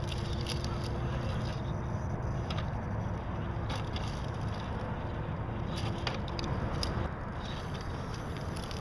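RC scale rock crawler working over granite boulders: tyres scraping and crunching on rock with scattered sharp clicks, and a faint on-and-off whine from its electric motor and gears.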